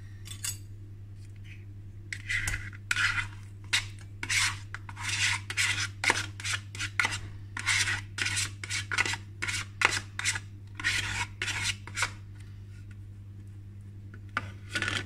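Metal spoon scraping soft cream cheese out of a plastic tub and off against a stainless steel mixing bowl: a quick run of short scrapes lasting about ten seconds, with one more brief scrape near the end.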